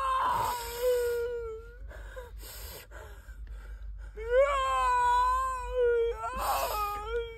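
A voice wailing in two long, drawn-out cries, each held on a steady high pitch that sinks a little at the end. Each cry is broken by a harsh, breathy sob.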